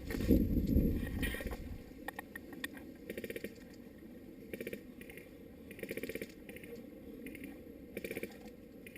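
Short bursts of rapid-fire clicking from airsoft guns firing on full auto, repeating every second or so. A heavy low thump and rumble comes in the first second and a half.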